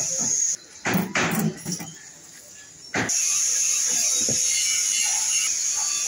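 Knocks and clatter of hollow concrete blocks being handled, a cluster of them about a second in and a single sharp knock about three seconds in, between stretches of a steady high hiss.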